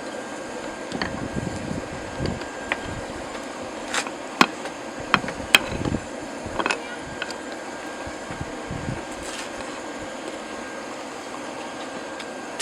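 Steady whir of a homemade forge's air blower, with a few light metallic clinks between about four and seven seconds in; no hammer blows.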